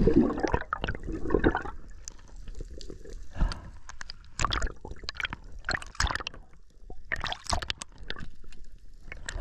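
Water heard through an underwater camera: gurgling and bubbling, with irregular sharp clicks and crackles scattered throughout, louder in the first second or so.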